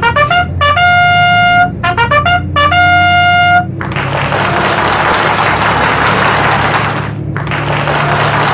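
A short trumpet fanfare: two phrases of quick notes, each ending on a long held note. From about four seconds in, the steady running noise of a diesel railcar under way, with a low engine hum.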